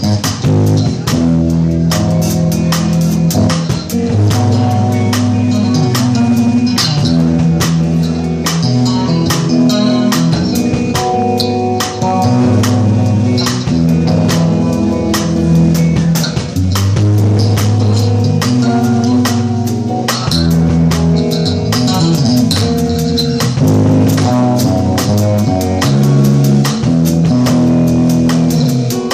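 Electric bass guitar solo played fingerstyle, with no slapping: moving low notes over a drum kit keeping a steady beat.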